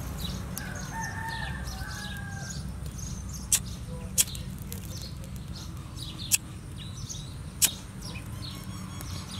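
Flint lighter struck four times, each a sharp click of the spark wheel, spaced a second or two apart. A chicken calls once near the start and small birds chirp over a low steady hum.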